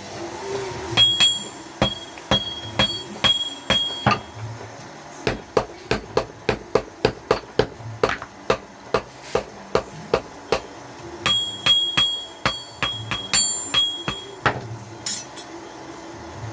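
Hand hammer forging a steel knife blade on an anvil in three runs of blows. The first and last runs ring with a bright metallic tone. The middle run is faster and duller, about three blows a second.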